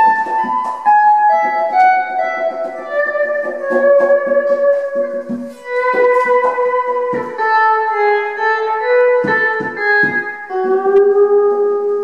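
Improvised guitar music: a slow line of long held notes that step and glide from one pitch to the next, with a few low thumps about seven and nine seconds in.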